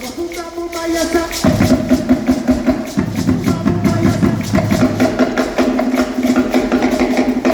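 Live band music with a steady rhythm: sustained instrumental notes over dense percussion strokes, heard from the audience at an open-air show.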